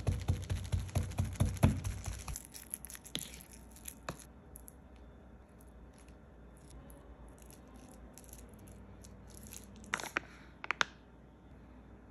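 Kitchen knife tapping rapidly on raw chicken breast against a wooden cutting board to tenderize it, about four knocks a second, stopping about two seconds in. After that come quiet handling sounds, with two sharp clicks about ten seconds in.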